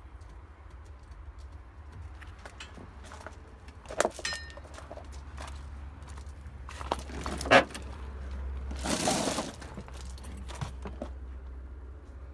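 Rummaging by hand through a junked car's interior: scattered clicks and knocks of parts being handled, the loudest a sharp clack about seven and a half seconds in, and a rustling scrape of about a second shortly after. A steady low hum runs underneath.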